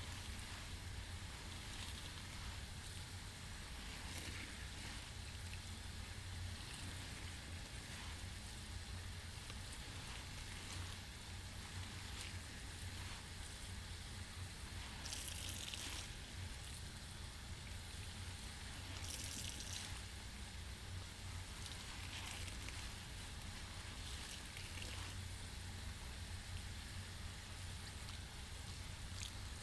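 Soapy sponge being rinsed and squeezed: a steady fizzing crackle of suds and water over a low hum. Louder wet squeezes come a few times, strongest about halfway through and again a few seconds later.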